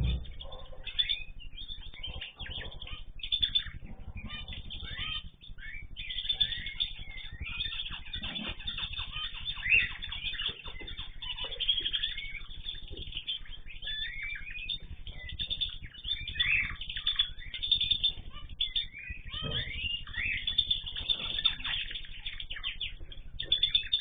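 Mixed aviary flock of cage birds (cockatiels, canaries, zebra finches and goldfinches) chirping and chattering, with many short, high calls and warbles overlapping without a break. A low steady rumble runs underneath.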